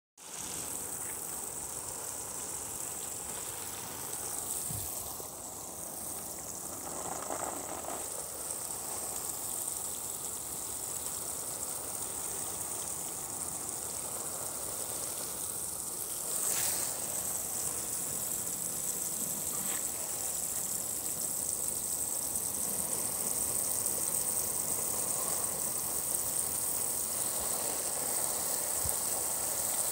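Water sprinkling onto plants in a steady hiss, with a couple of faint clicks around the middle.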